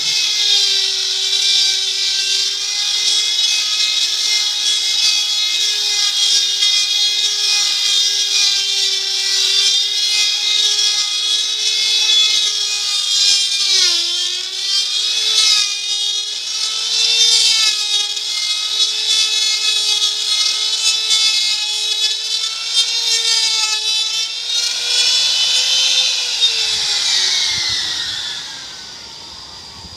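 Electric wood router running at steady high speed with a loud whine. The pitch dips briefly about halfway through, then the motor spins down, its pitch falling and the sound fading near the end.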